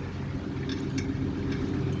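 A vehicle engine running steadily, growing a little louder, with a few light clinks and ticks.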